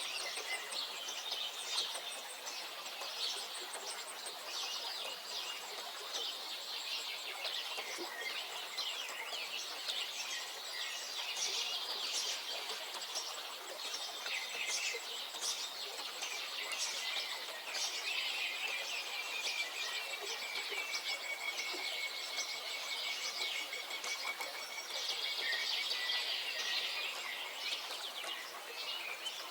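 Many songbirds singing at once: a dense, continuous chorus of overlapping chirps and trills.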